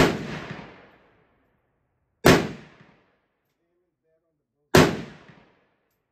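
Rifle fired three times in slow, deliberate semi-automatic fire, about two and a half seconds apart, each sharp report followed by a short echo that dies away within about half a second.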